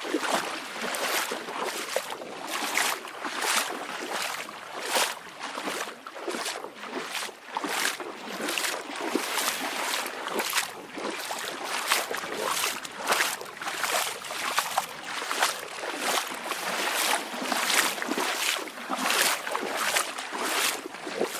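Small waves lapping and splashing at the water's edge in quick, irregular slaps, about two a second, over a steady wash of water.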